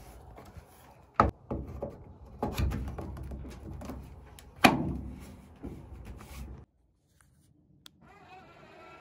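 Clicks and knocks from handling a pickup truck's plastic 7-way trailer connector socket, its spring-loaded cover flipping open and snapping shut, with the loudest knock a little before five seconds in. The sound cuts off suddenly near seven seconds, and a faint steady hum starts near the end.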